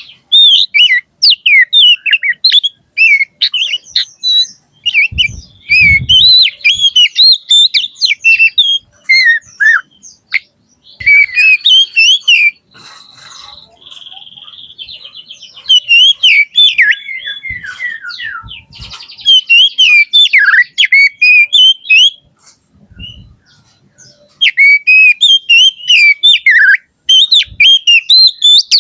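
Oriental magpie-robin (kacer) singing loud, rapid, varied phrases of whistles and chatter in bouts with short pauses, with a long buzzy trill about halfway through.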